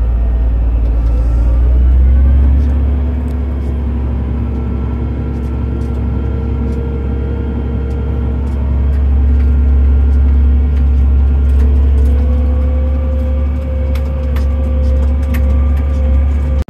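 Fendt tractor's engine heard from inside the cab, pulling away under load: a heavy low drone with a whine that rises as it gathers speed, and scattered light ticks throughout.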